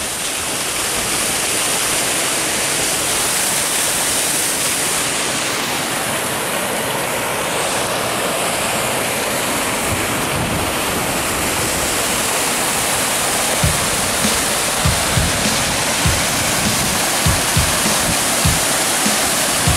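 Mountain stream waterfalls rushing steadily over rock. In the second half a run of short, low thumps is heard over the water.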